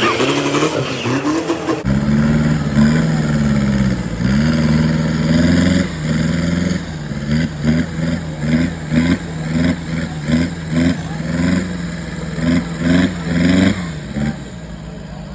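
Off-road 4x4 engine revving, then blipped hard in quick repeated bursts about twice a second, and settling to a steadier idle near the end.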